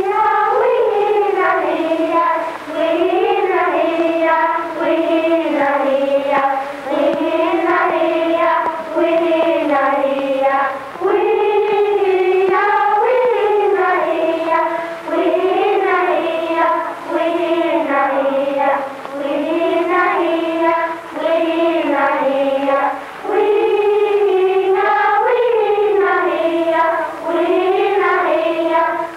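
A Native American song sung in a high voice, a melody in repeated phrases of a few seconds each with short breaks between them.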